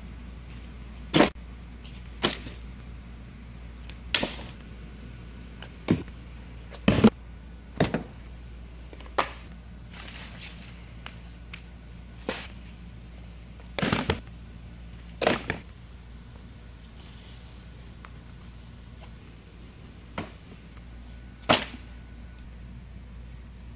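Sharp knocks and thumps at irregular intervals, roughly every one to two seconds, from a cardboard shipping box and the airsoft gear inside it being handled, over a steady low hum.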